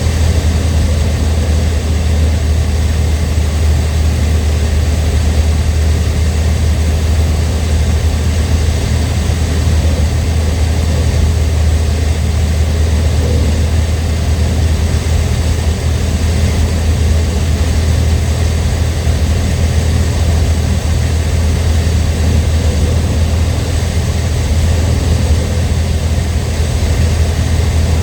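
Cessna 152's four-cylinder piston engine and propeller running at a steady setting, a constant low drone with rushing air noise over it.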